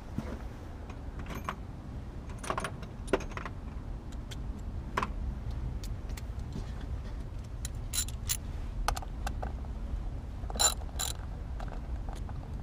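Metal hand tools clinking and clicking as a wrench and ratchet are handled over the engine. The clicks are irregular, with a louder pair about ten and a half seconds in, over a low steady rumble.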